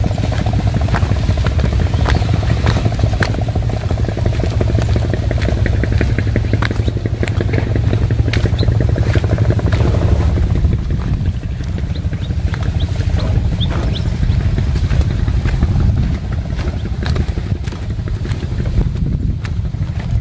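An engine running steadily in a low, even-pulsed drone that eases a little about ten seconds in, with scattered light clicks from footsteps and brushing vegetation over it.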